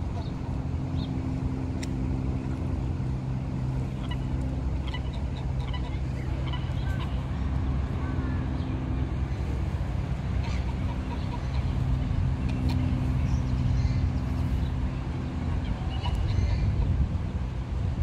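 A steady low engine drone holding a few fixed low tones, with scattered faint short bird calls over it.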